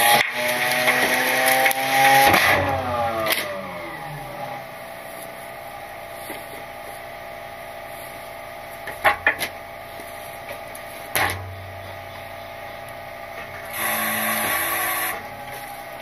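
Rear-loader garbage truck engine held at raised revs for the packer cycle, dropping back to idle about two and a half seconds in and then running steadily. A few sharp metal knocks come around the middle, and a thump follows a couple of seconds later. The engine rises again briefly near the end.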